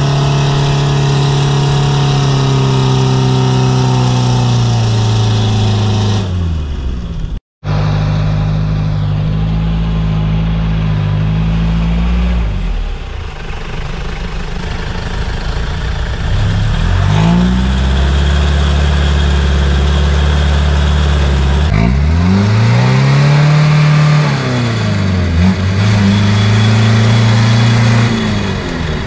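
Toyota LN167 Hilux's 5L four-cylinder diesel revving hard while working in mud, the revs held high, dropping away and climbing again several times. The sound cuts out completely for a moment about seven and a half seconds in.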